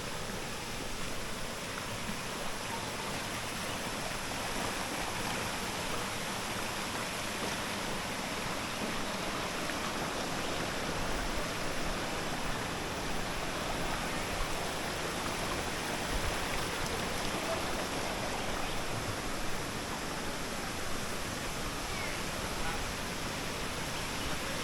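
Waterfall rushing, a steady even noise of falling water that grows slightly louder over the first few seconds.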